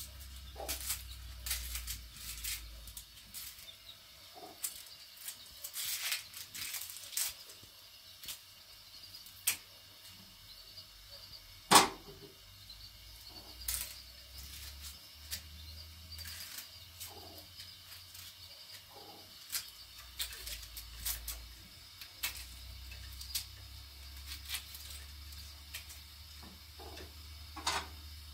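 Dry red onion skins crackling and rustling as they are peeled by hand, with scattered small clicks and one sharper knock about twelve seconds in.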